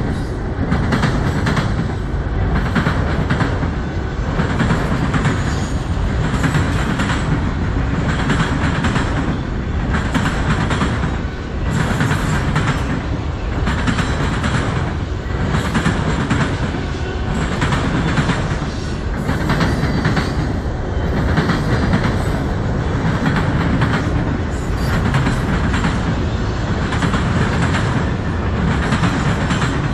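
Freight train of autorack cars rolling past close by: a steady low rumble with steel wheels clacking over the track in a repeating rhythm.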